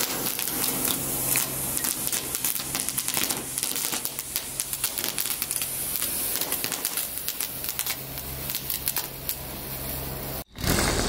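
Small ground fountain fireworks spraying sparks: a steady hiss with rapid crackling, cutting off suddenly near the end.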